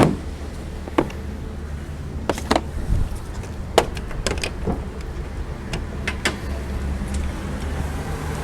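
Scattered sharp clicks and knocks, about a dozen irregularly spaced, over a steady low hum.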